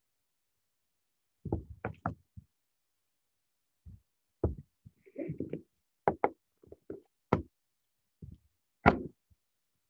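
Irregular knocks and clacks, about a dozen, with a short scrape in the middle, the loudest near the end: small electrical parts and wires being handled and set down on a wiring training board.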